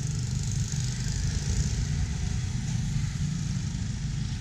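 Street traffic noise: motorbike and car engines running along a town road, heard as a steady low rumble with a lighter hiss above it.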